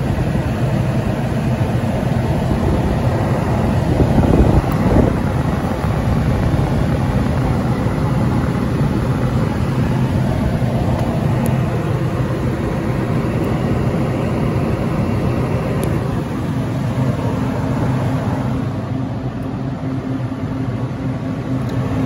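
Steady mechanical hum with a fan-like rush and low droning tones from running machinery, the refrigerator's compressor being off. A brief louder rumble comes about four seconds in.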